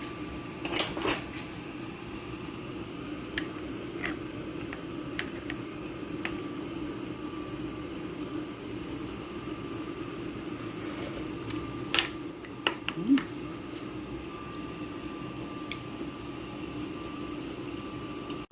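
A steady low hum with scattered light clinks of dishes and utensils, the loudest a cluster about twelve seconds in.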